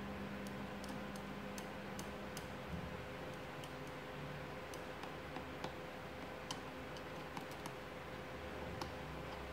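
Irregular light ticks and clicks from a screwdriver-type voltage tester's probe tip being held and moved in a power-strip socket, over a faint steady hum.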